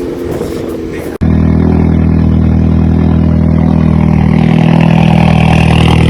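A modified car's engine and exhaust held at steady high revs, loud and even, with a faint whine rising slightly over the hold. It starts abruptly about a second in, after an engine whose revs were dropping.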